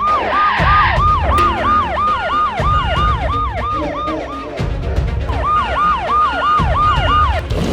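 Electronic siren sound effect sweeping quickly up and down, about four sweeps a second, breaking off for about two seconds midway and then resuming, over background music with a steady beat.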